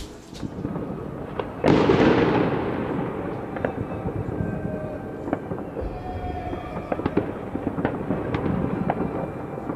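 New Year's fireworks and firecrackers going off: a loud bang about two seconds in that dies away slowly, then scattered sharp cracks and pops.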